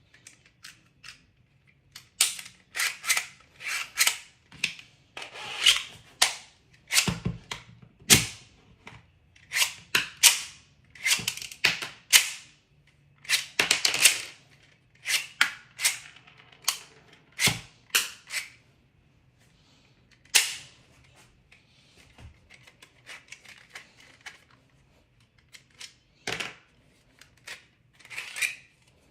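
Hard plastic clicks, clacks and short rattles as 3D-printed toy pistol parts are handled and snapped together: a dense, irregular run of sharp clicks that thins out to a few separate ones over the last third.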